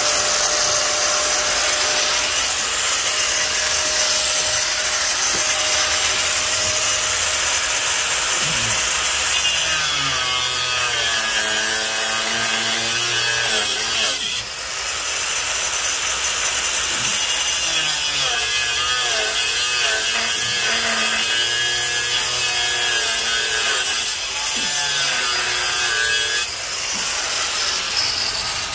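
An electric abrasive cut-off wheel grinding through a hardened steel rod, its motor tone sagging and recovering as pressure on the cut changes. The sound dips briefly about halfway through and again near the end.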